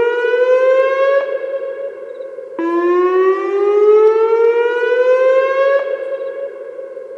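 Whelen WPS-2905 electronic outdoor warning siren sounding its whoop tone: a slow rising sweep about three seconds long that cuts off abruptly and echoes back before the next sweep starts, twice in a row.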